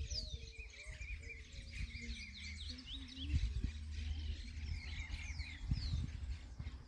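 Wild birds singing and chirping: repeated high, short, downward-sliding whistles and quick chirps, over a steady low rumble on the microphone.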